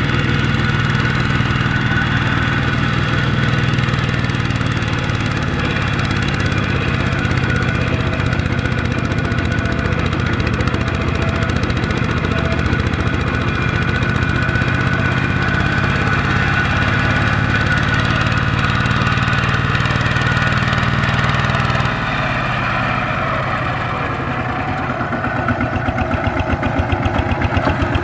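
Two-wheel walking tractor's single-cylinder diesel engine running steadily as it pulls a loaded rice trailer through deep mud. About three-quarters of the way through the sound changes abruptly, and near the end a fast, even pulsing grows louder.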